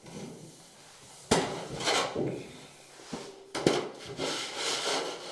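Sheet metal clanking and rattling as it is handled, with a sharp metallic knock about a second in and another, louder pair past halfway.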